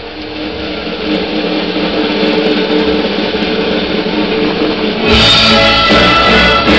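A large symphony orchestra with guitars playing held notes that swell steadily louder. About five seconds in the full ensemble comes in, fuller and louder, with low bass notes added.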